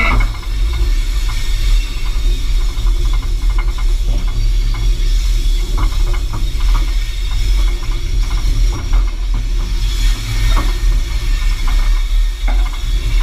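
South Australian Railways 800-class diesel-electric locomotive 801 running along the track, heard from a mount outside at its front end. There is a steady low rumble and hiss, with frequent short clicks and knocks from the wheels and running gear.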